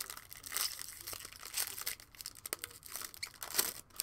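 A foil trading-card pack wrapper being torn open and crinkled by hand, in irregular crackling bursts, loudest shortly before the end.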